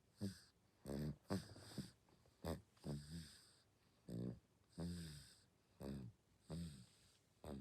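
Six-month-old baby snoring in sleep: a quick, irregular run of short snores, roughly one or two a second, several with a pitched tone that falls away.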